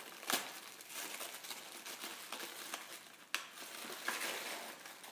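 Wrapping paper crinkling and tearing as a present is unwrapped by hand, faint, with a couple of sharper crackles.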